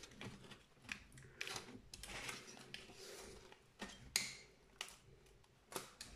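Faint plastic clicks and scraping as the ASUS X540L laptop's case is pried apart, its snap clips popping loose one by one, with a sharper click about four seconds in.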